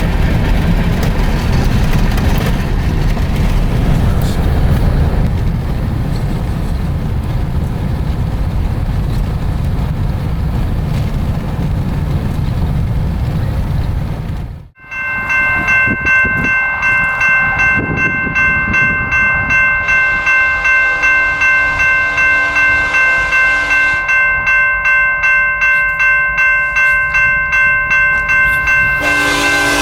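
A steady low rumble for about fifteen seconds, cut off sharply. Then a railroad grade-crossing bell rings about twice a second. Near the end, a diesel locomotive's air horn starts to sound.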